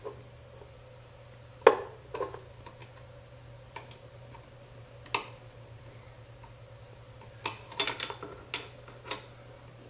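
Shortened steel Allen key clinking and clicking against a cap screw and the metal Z-axis mount as it is fitted and turned a little at a time in a cramped spot. There are scattered sharp metal clicks, the loudest a couple of seconds in and a quick run of them near the end, over a steady low hum.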